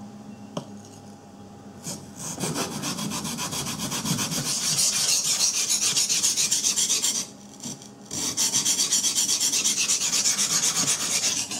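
Ka-Bar Becker BK-17 knife blade stroked back and forth on a wet sharpening stone, a rapid scraping rub at about four strokes a second. It comes in two runs, from about two seconds in and again after a short pause about eight seconds in. The edge is being reprofiled to a convex bevel.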